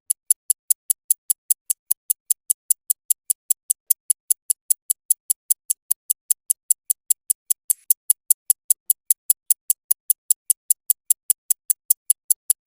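Clock ticking sound effect: sharp, high-pitched ticks at a fast, even rate of several a second.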